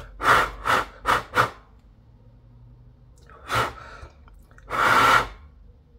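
A person blowing short puffs of breath at a handheld device's display to clear dust off it: four quick puffs, one more about three and a half seconds in, then a longer blow near the end.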